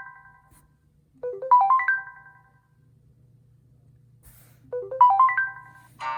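LG G Flex phone ringtone: a short, quick rising run of bright chiming notes that ring on and die away, repeating every few seconds. Just before the end a different, busier plucked-string ringtone starts.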